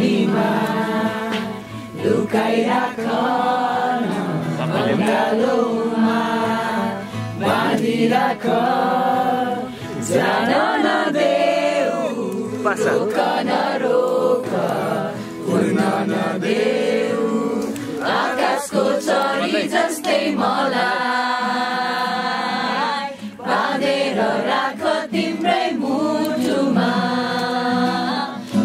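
A group of voices singing a song together in chorus, with held, sliding notes.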